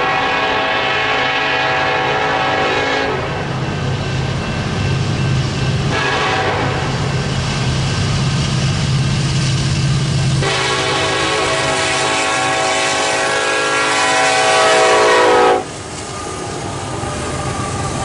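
Union Pacific SD70ACE's Nathan K5LLA five-chime air horn blowing long blasts for a grade crossing: one long blast, a short gap, then a long blast that runs straight into a third whose chord shifts partway through and cuts off suddenly near the end. Under and after the horn comes the low rumble and wheel clatter of the train rolling past.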